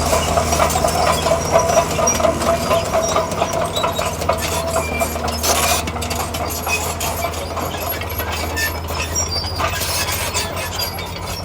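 Diesel engine of heavy earthmoving machinery running steadily, with scattered metallic clinks and rattles over it.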